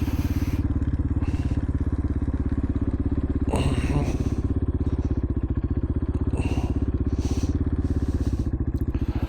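KTM 500 EXC's single-cylinder four-stroke engine running steadily at idle, an even beat of firing pulses with no revving.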